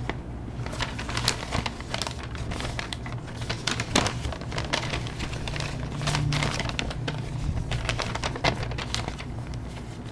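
Thin folded paper instruction manual being handled and refolded, rustling and crinkling with many irregular sharp crackles.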